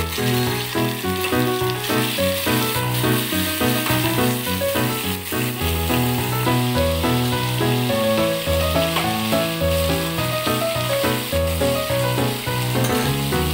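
Prawns sizzling as they fry in oil in a pan, a steady high hiss, under background music with a melody and bass line.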